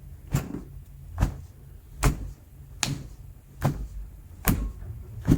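A steady series of seven short thumps, a little under a second apart, from rhythmic hands-on manipulation of a patient on a treatment table.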